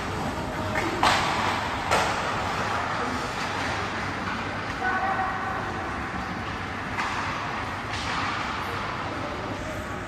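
Ice hockey play on the rink: skates scraping and carving the ice, with two sharp clacks about one and two seconds in and swells of scraping near the end.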